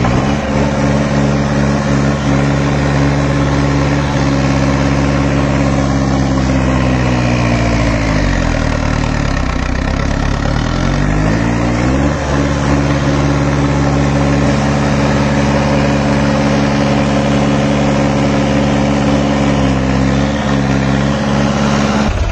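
Tractor diesel engine running hard as the tractor drags a blade through loose soil. About eight seconds in its pitch sinks under the load, then climbs back a few seconds later.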